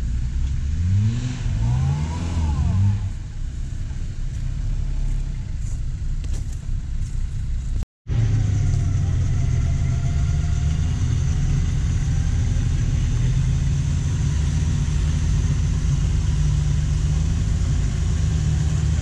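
Off-road 4x4's engine revving up and down several times, then, after a brief cut about eight seconds in, running steadily with a slowly wavering pitch.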